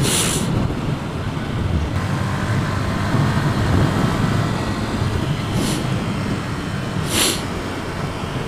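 125cc motorcycle running steadily under way, heard from a helmet camera through wind and tyre noise on a wet road. Three brief hisses stand out: one at the start and two more about five and a half and seven seconds in.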